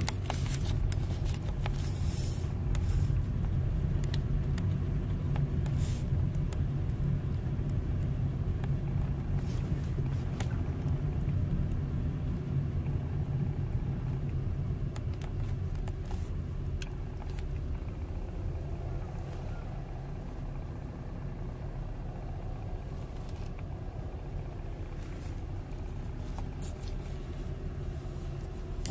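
Car driving, heard from inside the cabin: a steady low rumble of engine and tyres, with scattered light clicks and knocks, easing slightly in the last third.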